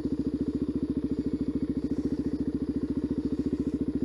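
Supermoto motorcycle engine running at a steady idle, an even rapid pulse with no change in speed.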